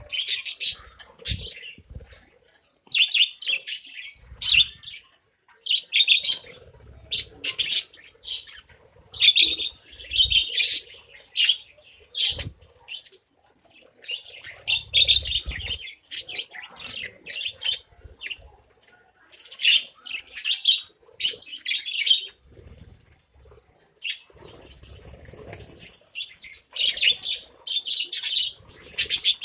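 A flock of budgerigars chirping and chattering in short, high bursts, one after another.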